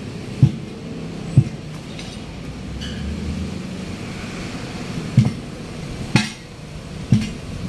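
Sledgehammer blows on a large truck tyre being worked onto its steel rim. There are five dull thuds: two in the first second and a half, then three about a second apart near the end, the middle one of these sharper than the rest.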